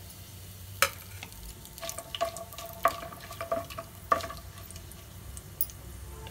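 A metal spoon stirring and scraping in a pan where whole spices and bay leaves are frying in hot oil. There are about five clinks between one and four seconds in, over a faint sizzle.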